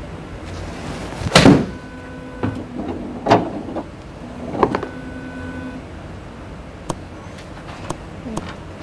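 A golf club striking a ball in a full swing: one loud sharp strike about a second and a half in, followed by two lighter knocks, each with a short steady ringing tone after it, and a few faint clicks near the end.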